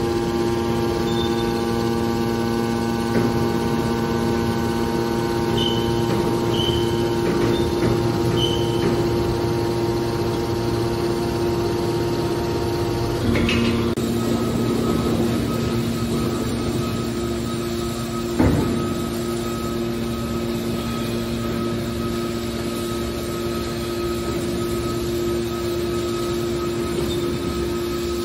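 TCM hydraulic metal baler running, its hydraulic pump and motor giving a steady hum as the cylinders swing the lid cover closed. One sharp metallic clunk sounds about two thirds of the way through.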